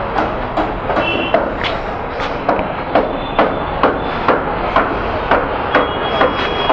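A steady run of sharp knocks, nearly two a second, evenly spaced, over a constant background of noise.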